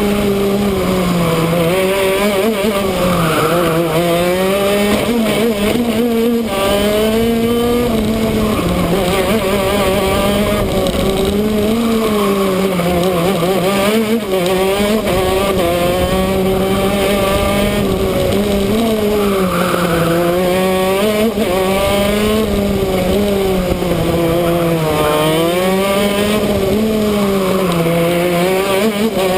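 Shifter kart's two-stroke gearbox engine at racing speed, its pitch dropping and climbing back up every few seconds as it laps the track.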